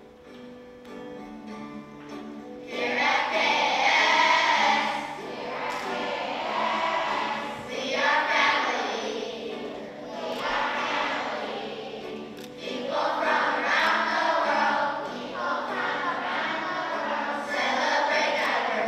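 A group of children singing the school song in short call-and-echo phrases over instrumental accompaniment. The accompaniment plays quietly alone for about the first three seconds before the voices come in.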